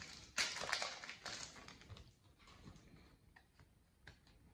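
Foil wrapper of a Pokémon booster pack crinkling as it is torn open, loudest in the first second and a half, then fainter rustling with light clicks.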